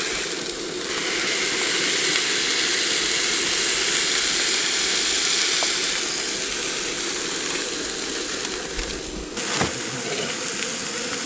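Beef smash-burger patties sizzling hard in a searing-hot black pan while being pressed flat with an old flat iron: a loud, steady sizzling hiss that swells about a second in and eases after about six seconds.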